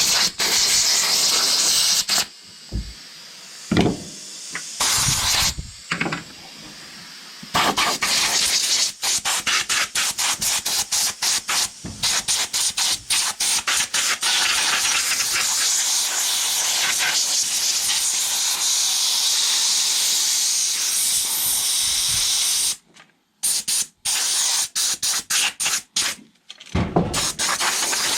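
Compressed air hissing from a blow gun, in long blasts broken by runs of quick stop-start bursts as the trigger is worked, with a couple of quieter pauses.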